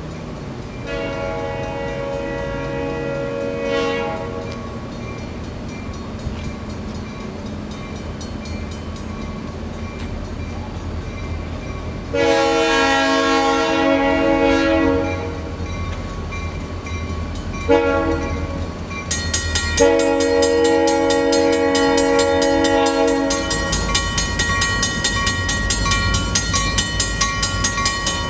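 Diesel locomotive's multi-note air horn blowing the grade-crossing signal, long, long, short, long, over the low rumble of the train. Around the last blast a fast, even ticking and a steady high ring join in.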